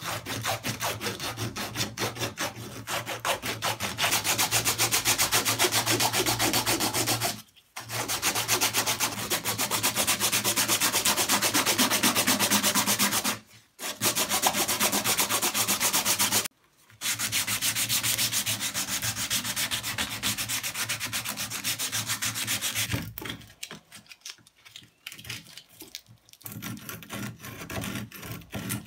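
Sandpaper strip pulled rapidly back and forth by hand around a knife handle, shoe-shine style: fast, even rasping strokes that stop briefly three times. From about two thirds of the way in, the strokes turn quieter and sparser.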